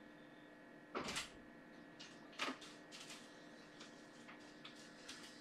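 Quiet room tone: a faint steady hum, with two brief soft rustles about one and two and a half seconds in and a few fainter ticks after.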